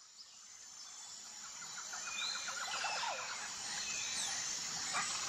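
Outdoor birdsong fading in: scattered bird chirps and a quick rattling trill over a steady high hiss.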